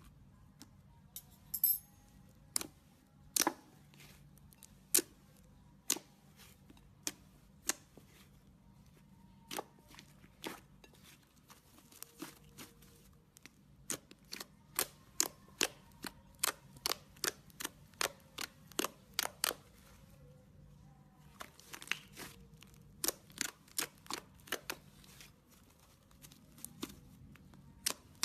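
Slime being pressed and worked by hand, its trapped air bubbles popping in a long irregular string of sharp clicks, sometimes several a second.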